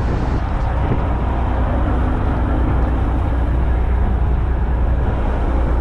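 Boat engine running steadily while under way: a continuous low rumble.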